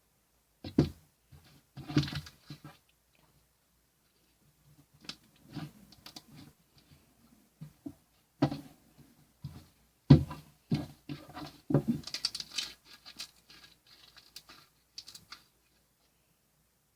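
Irregular knocks, taps and rustling, like something being handled in a small room, with a denser run of clicks and rustles around the middle to late part.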